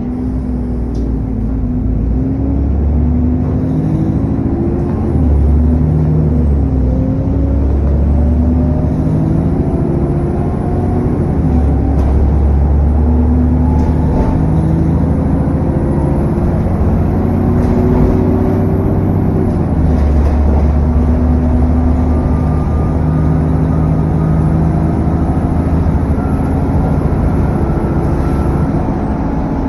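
Turbocharged car engine pulling on the road, with the engine cooling fan thrashing and a turbo whine that climbs in pitch as the revs rise, then falls away about twenty seconds in. A thin high whistle runs above it.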